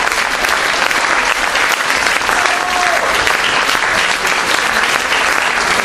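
Theatre audience applauding steadily and densely, with a short high call from one voice about two and a half seconds in.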